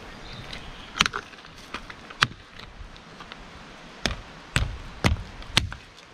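A series of sharp knocks and thuds at uneven intervals, about eight in all, the loudest about a second in, again after two seconds, and a cluster near the end.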